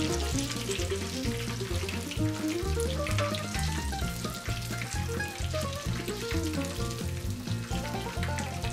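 Chicken wings frying in a skillet of shallow oil, a steady sizzle and crackle. Background music with a bouncing bass line plays under it.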